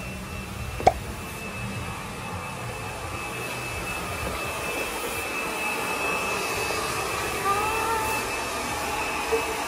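Hair dryer running with a steady whir and a thin high whine, growing gradually louder. One sharp click about a second in, and faint voices near the end.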